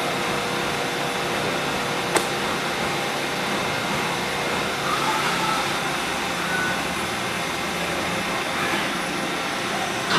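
Mazak Integrex 400-III ST CNC turning center machining a part with flood coolant spraying: a steady machine hum under the hiss of coolant. A single sharp click about two seconds in.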